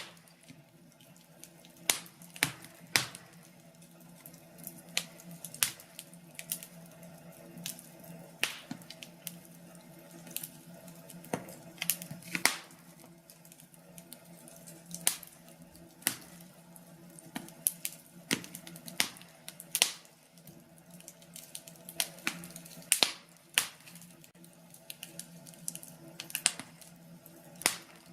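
Wood fire crackling in a fireplace: sharp pops and snaps at uneven intervals, some louder than others, over a faint steady hum.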